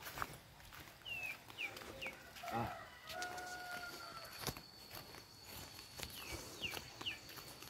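Birds chirping: short, high, falling peeps in quick groups of three, about a second in and again near the end.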